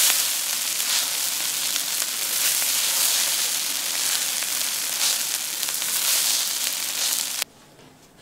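Fried rice sizzling in an oiled stainless steel pan as it is stir-fried with a spatula: a steady high hiss with small scraping ticks. It cuts off suddenly near the end.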